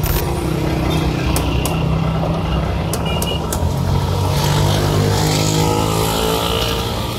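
An engine running steadily at an even pitch, with a few light clicks over it.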